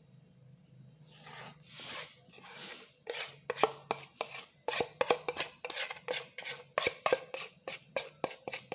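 A metal spoon scraping and knocking against a cup while cake batter is worked or spooned into it. A second or so of soft scraping gives way, about three seconds in, to quick, steady clinks, about three or four a second.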